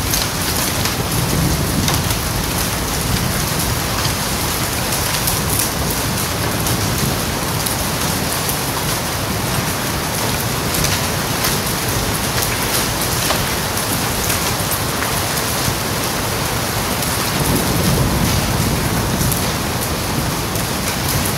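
Hail falling on asphalt and surrounding plants: a dense, steady hiss of pellets striking the ground, peppered with many sharp ticks, with a low rumble swelling and fading underneath.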